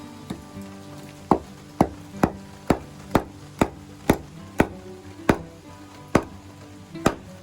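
Knife chopping on a cutting board: sharp, even strokes about two a second, starting about a second in, over background music.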